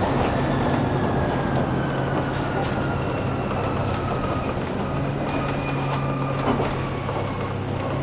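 Orion VII Next Generation hybrid-electric city bus under way, heard from inside: a steady low drone with a thin electric-drive whine that falls slowly in pitch as the bus slows, and light rattling clicks.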